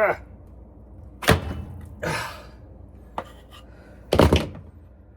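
Hard thunks and knocks from needle-nose pliers and a washing machine's plastic drain pump as a tightly lodged baby sock is yanked out of the pump: one sharp knock, then a heavier double knock about three seconds later, with a breathy exhale and a small click between.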